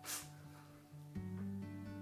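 Gentle acoustic guitar music playing, changing chord about a second in, with a short noisy sound right at the start.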